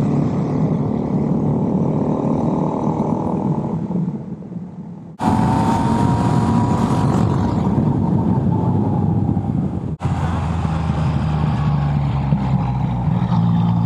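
Motorcycle engine running at road speed, with wind rushing over the bike-mounted microphone. The engine eases off about four seconds in, and the sound changes abruptly twice, about five and ten seconds in.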